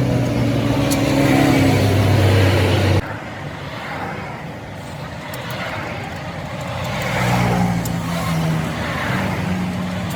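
Motor vehicle engines running: one engine rises in pitch for about three seconds and cuts off abruptly, then after a quieter stretch another engine note rises and holds near the end.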